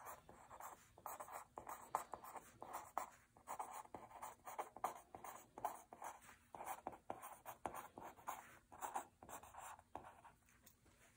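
Pen writing by hand on a paper worksheet: a run of short, faint scratching strokes with brief pauses between words.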